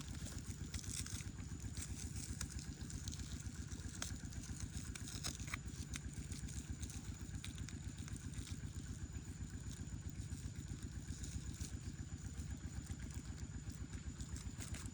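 A small engine running steadily with a fast low putter, along with a faint thin high steady tone and a few light clicks.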